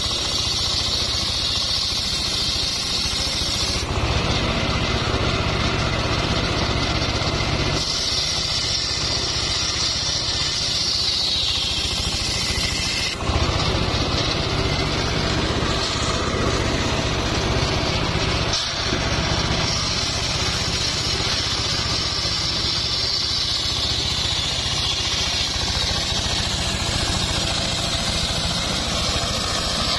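A homemade engine-driven table circular saw running and ripping timber lengthwise, its steady motor hum under a high blade whine that sags and drops in pitch as the blade takes the wood.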